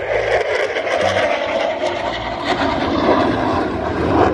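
Aircraft flying overhead in an air show display, its engine noise a loud, steady rush.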